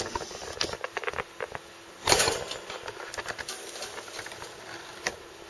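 Pet rat making a run of small clicks and crackles, with one louder, noisier burst about two seconds in and a sharp click near the end. The owner worries these strange noises may be a sign of a health problem.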